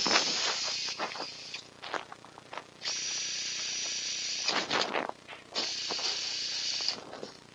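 A steady high hiss with a faint thin whistle in it, running in three stretches of a second or two with short gaps and a few light clicks between them.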